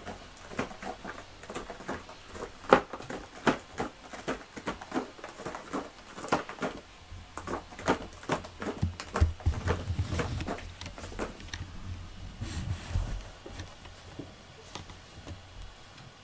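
Soft irregular taps and rustles right at the microphone as a cat rubs against and brushes past the camera, with a few dull low thumps around the middle.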